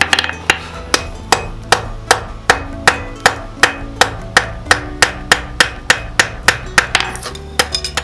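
Blacksmith's hammer forging a knife blade on an anvil: a steady run of sharp blows, about three a second, each ringing briefly.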